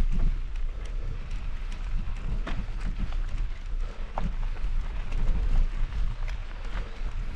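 Mountain bike riding over a rough dirt trail: a steady rumble of wind on the microphone, with irregular clicks and rattles from tyres and bike over the ground.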